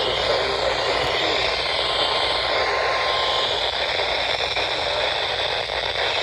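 Steady hiss and static from a weather radio tuned to a weak, distant NOAA Weather Radio signal, with a faint wavering whine in the noise.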